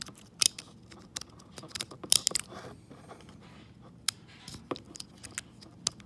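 Plastic parts of a Ford body control module wiring connector (C2280E/F) clicking and scraping as its two terminal blocks are lined up and slid into the housing. A string of sharp clicks and short scrapes, the loudest about half a second in, around two seconds in and near the end.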